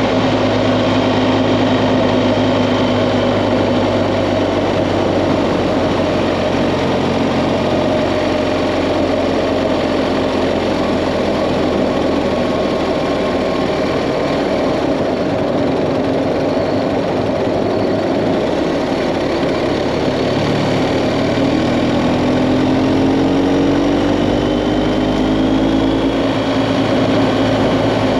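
BMW GS Adventure motorcycle engine running steadily at road speed, heard from the rider's seat together with road noise. About three quarters of the way through, the engine pitch rises as the bike accelerates.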